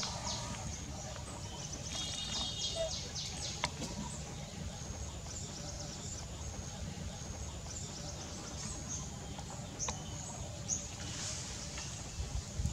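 Outdoor ambience: a steady low background rumble with scattered short, high chirps, a quick trill about two seconds in, and a few sharp clicks.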